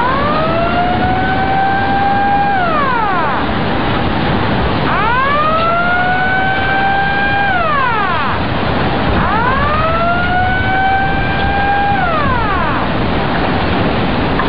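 Outdoor warning siren wailing in three long cycles: each quickly rises, holds a steady tone for about two seconds, then falls away, over a steady loud rushing noise.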